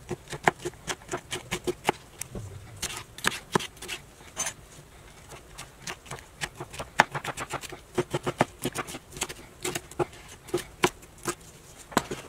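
Kitchen knife dicing a green pepper on a wooden cutting board: a run of quick, irregular knocks of the blade against the board, with a few short pauses.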